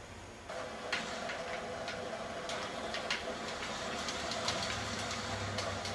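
Video game sound playing from a television: a steady drone with irregular sharp clicks scattered over it, starting about half a second in.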